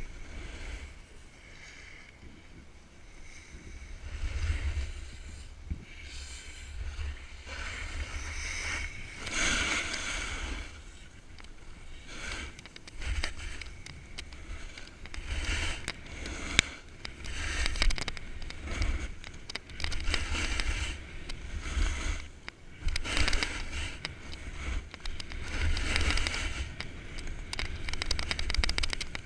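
Snowboard edges scraping and hissing over packed snow through a run of turns, the hiss rising and falling every couple of seconds. Wind rumbles on the microphone underneath.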